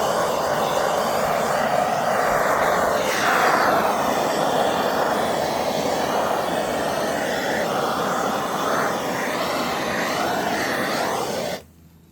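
Chainsaw engine running at high speed, its pitch rising and falling, then cutting off suddenly near the end.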